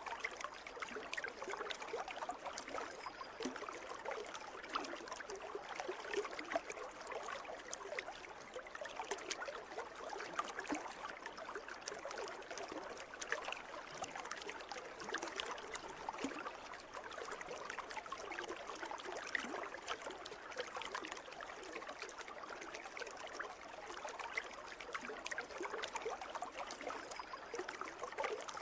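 Water in a pool trickling and splashing steadily, a continuous dense patter of small splashes with no let-up.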